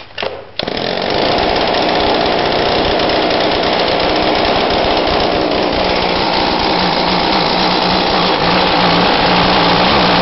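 Two-stroke engine of a McCulloch handheld leaf blower being pull-started: a few short knocks, then it catches about half a second in and runs on steadily, its speed wavering a little near the end. It is loud because no exhaust muffler is fitted.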